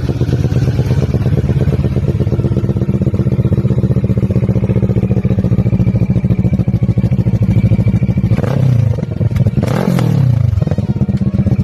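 CFMOTO 400 parallel-twin motorcycle engine idling with an even exhaust beat through an aftermarket muffler. It is blipped twice near the end: a short small rev, then a higher rev that rises and falls back to idle.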